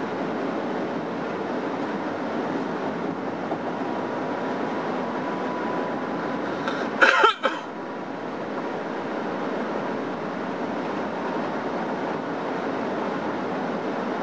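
Steady road and engine noise of a car cruising on the highway, heard from inside the cabin. About halfway through, a short loud noise cuts in for about half a second.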